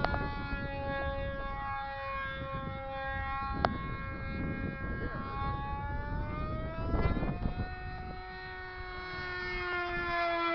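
A propeller aircraft's engine droning overhead, its pitch slowly sinking and then rising again as it flies, with wind rumbling on the microphone and a single sharp click a little over a third of the way in.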